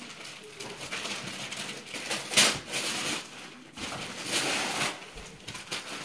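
Wrapping paper tearing and rustling as a present is unwrapped, in several noisy bursts, the loudest about two and a half seconds in.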